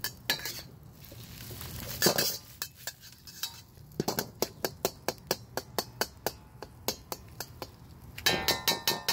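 Metal wok spatula striking and scraping a wok while stir-frying eggs: a run of quick clanks about three or four a second, with a louder flurry of ringing clanks near the end.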